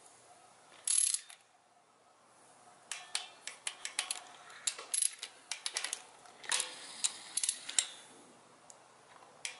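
Ratcheting torque wrench tightening bolts on an engine's rocker arm assembly: a short burst of ratcheting about a second in, then repeated runs of rapid pawl clicks as the handle is swung back and forth in short strokes.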